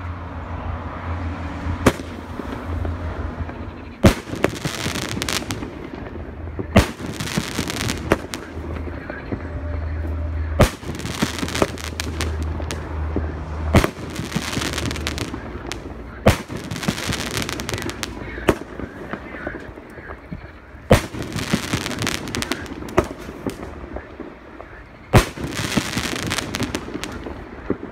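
A 2.5-inch seven-shot shell firework cake fires its shells in turn. Sharp launch thumps and aerial bangs come every two to three seconds, with noise lingering between them.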